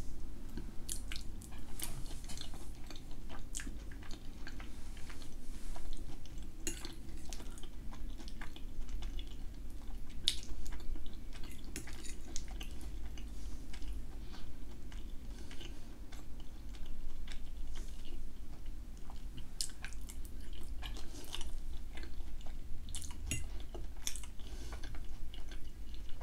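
Close-miked chewing of soft potato-and-cheese gratin, with short clinks and scrapes of a metal fork on a ceramic plate scattered throughout.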